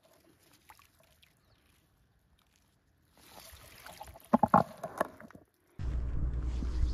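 Water splashing as a small trout is released from a landing net into shallow lake water, with a few sharp splashes about four to five seconds in. Near the end the sound cuts abruptly to a steady low rumble of wind on the microphone.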